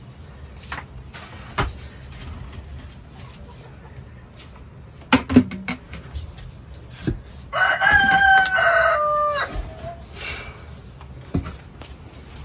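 A rooster crows once, a call of about two seconds that drops in pitch at its end, about eight seconds in; it is the loudest sound here. Before it come a few sharp knocks and scrapes of a wooden paddle against a metal cooking pot.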